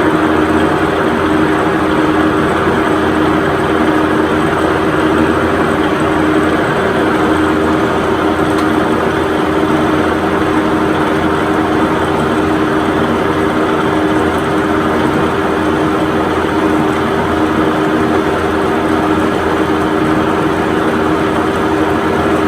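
Machine tool running steadily while machining a bushing: a constant loud hum with two steady tones over a wash of cutting and motor noise.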